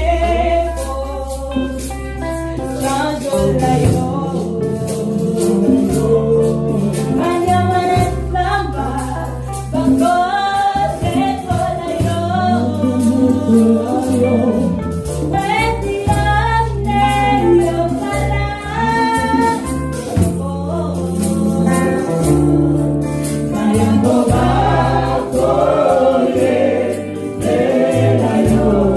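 Gospel worship music: a choir singing over a band, with a bass line holding long low notes and steady percussion.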